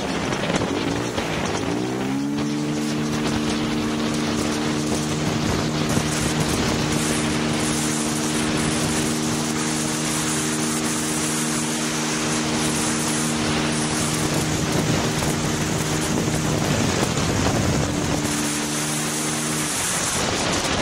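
Motorcycle engine pulling under steady throttle: its note rises about two seconds in, then holds one even pitch while the bike gathers speed, and falls away near the end. Heavy wind rush over the helmet-mounted microphone runs underneath.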